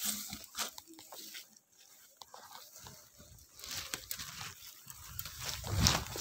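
Footsteps pushing through dry grass and brush, with leaves and twigs rustling and crunching in a run of short irregular strokes. There are louder bursts about two-thirds of the way in and near the end.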